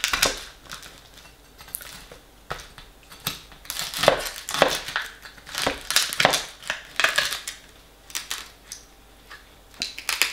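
A metal fork cutting and scraping through the dumpling topping of a steak pie in an aluminium foil tray: a run of irregular crunching, scraping strokes, with the foil tray crinkling.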